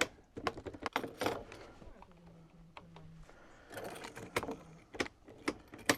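Clicking of a CF Moto ATV's ignition key being turned on and off several times, with a faint low hum about two seconds in; the engine does not start, a no-start the owner puts down to oxidation inside the ignition switch.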